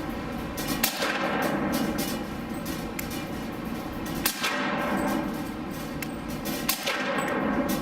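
Suppressed H&K P30 pistol in .40 S&W with an AAC Tirant 45M silencer firing three sharp shots, about a second in, around four seconds in and near the end, each with a short echoing tail. A steady HVAC hum runs underneath.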